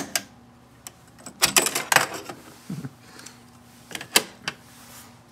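Marantz 5220 cassette deck's piano-key transport buttons clicking as playback is stopped, followed by a clatter of the eject mechanism and the plastic cassette being taken out about a second and a half in. A few light plastic clicks near the end as the cassette is set down.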